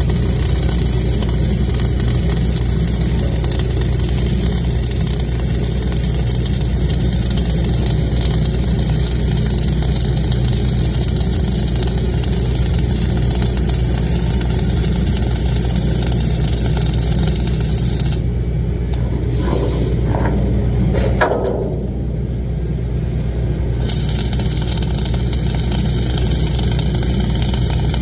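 An engine running steadily under a loud, continuous hiss; the hiss cuts out for about six seconds two-thirds of the way through, leaving the engine hum and a few brief rising sounds, then returns.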